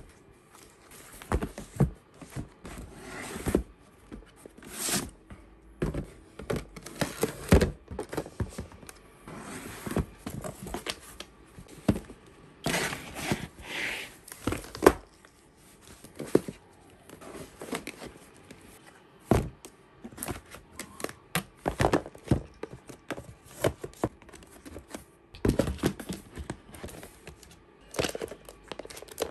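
Albums and small boxed items being slotted and shuffled into a cardboard box by hand: irregular knocks, scrapes and crinkles of card and plastic packaging, busiest around the middle.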